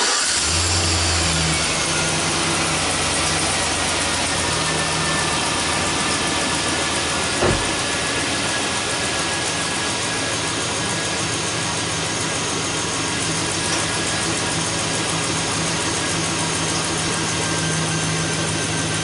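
2005 GMC Sierra's gasoline V8 idling steadily just after being started, its spark plugs freshly retorqued after being found loose as the cause of a misfire. A single short knock sounds about seven seconds in.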